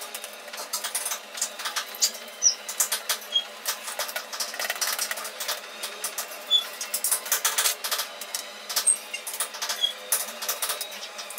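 Plastic laptop casing being handled and wiped by hand: irregular clicks, taps and light clatter of plastic parts on a hard surface, with a few short high chirps.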